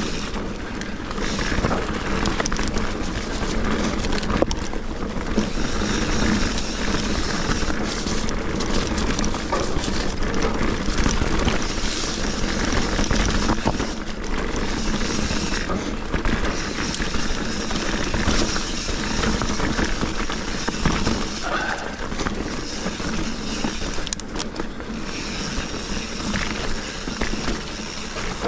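Mountain bike ridden fast on a wet dirt singletrack: knobby tyres rolling over mud and leaves, with the bike's constant small rattles and clicks over a steady rush of noise.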